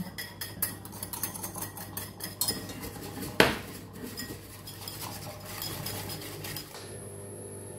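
Wire whisk rattling quickly against a glass bowl, stirring chocolate pudding powder and sugar into a little milk. There is one louder clink about three and a half seconds in, and the whisking fades out near the end.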